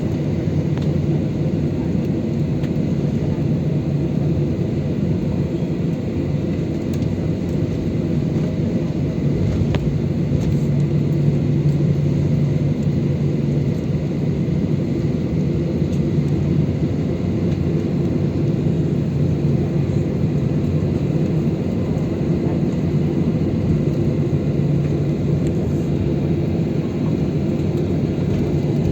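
Steady engine hum and rumble inside a jet airliner's cabin as it taxis after landing, with a constant low drone.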